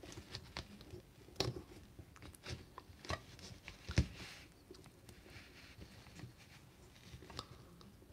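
Faint, irregular clicks and rustles of fingers handling a plastic action figure while tying a small string around its waist, with a sharper knock about four seconds in.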